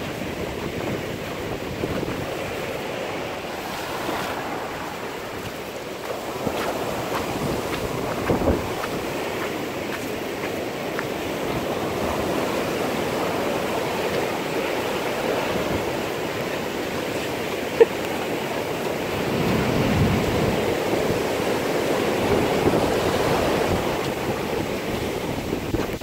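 Ocean surf washing onto a sandy beach, a steady rushing that swells louder a few seconds after the middle, with wind buffeting the microphone. A single sharp click cuts through it partway in.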